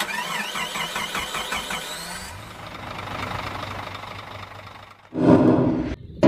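Channel intro logo sound effects. A warbling electronic glitch sound runs for about two seconds, then gives way to a rushing noise that slowly fades. About five seconds in comes a short, loud hit that cuts off suddenly.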